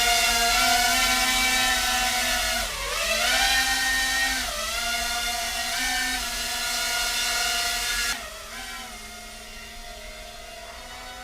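4-inch FPV freestyle quadcopter's brushless motors and propellers whining. The pitch dips and climbs back several times as the throttle is cut and reapplied, and the sound gets quieter after about eight seconds.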